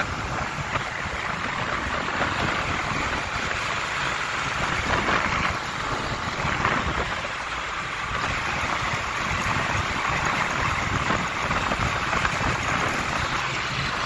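New Holland T3 75b tractor's diesel engine running steadily as it drives along the road hauling a trailer loaded with logs, with wind on the microphone.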